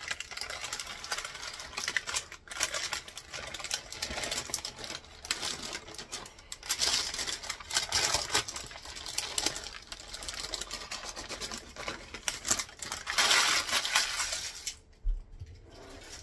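Parchment paper crinkling and rustling as it is peeled off a hot, freshly baked pumpkin roll sponge, a run of dense crackles that stops shortly before the end.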